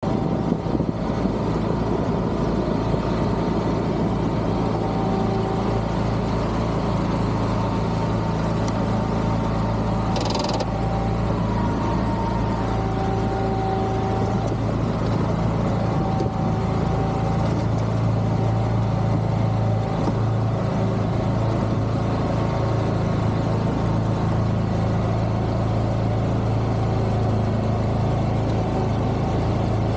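Engine of a Wilcraft amphibious vehicle running steadily with a strong low hum, heard from on board as the craft drives into the water and through thin ice. One brief sharp noise about ten seconds in.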